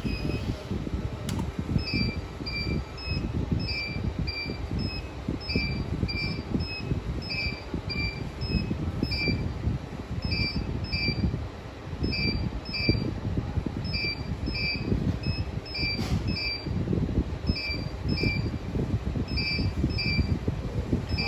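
A steady low rumble of fan-like room noise, with a short high electronic beep repeating about one and a half times a second, with a few gaps, from the calibration test equipment.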